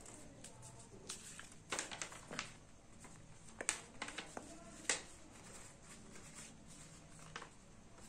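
A sheet of origami paper handled and folded on a wooden tabletop: a run of short, crisp paper rustles and crackles as it is opened along its creases and refolded. The sharpest crackles come about two seconds in, just before four seconds and at five seconds.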